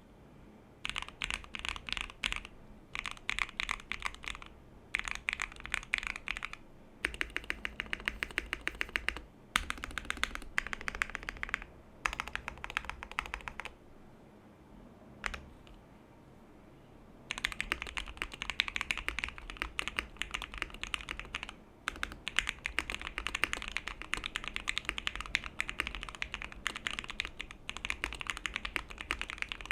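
Typing on a Tofu65 mechanical keyboard with lubed Gateron Black Box Ink linear switches, a polycarbonate plate, case foam and PE foam: fast trains of key clicks in short runs at first, a pause of about three seconds with a single keystroke, then nearly unbroken fast typing.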